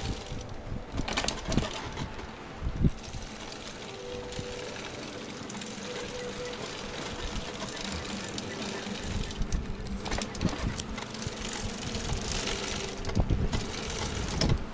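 A homemade bicycle being ridden, its frame and fittings rattling, with sharp knocks over bumps a few times. A faint steady hum runs through the middle.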